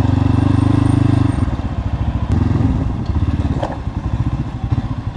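Motorcycle engine running at a steady note, which drops and turns uneven about a second and a half in as the throttle is eased off.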